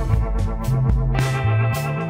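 Background instrumental music: sustained keyboard chords over a bass line that steps from note to note, with short, crisp percussion hits.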